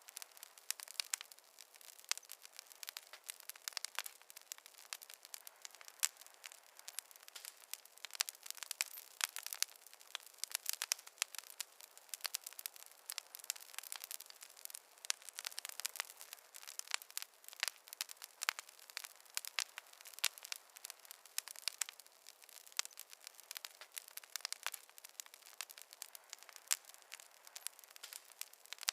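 Wood fire crackling continuously: dense, irregular sharp pops and snaps over a faint hiss, with no low rumble.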